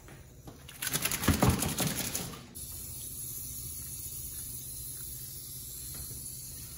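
A wet cocker spaniel shaking himself off, his coat and long ears flapping rapidly for under two seconds, about a second in. After it, a steady low hiss.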